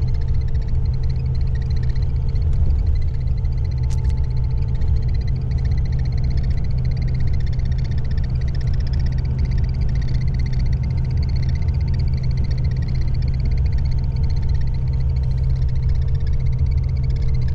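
Cabin noise inside a sleeper coach bus on the move: a steady low drone of engine and road, with a faint steady whine over it.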